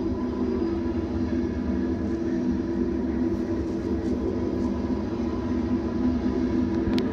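Freight oil train of tank cars rolling past unseen: a steady rumble with a constant low hum. A sharp clank comes near the end.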